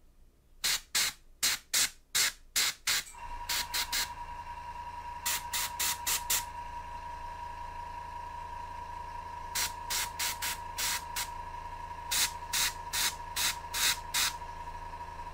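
Airbrush hissing in short bursts of about a third of a second each, in quick runs of three to six, as the trigger is tapped to mist small amounts of paint onto a miniature figure. About three seconds in, a steady hum with a thin whine starts underneath and keeps running.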